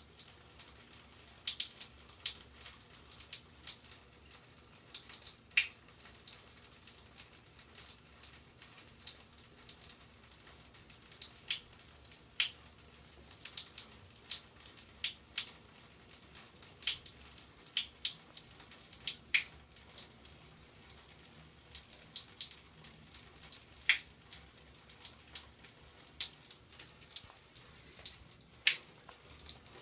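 Water dripping and trickling: irregular sharp drips, several a second, over a faint steady hiss of running water.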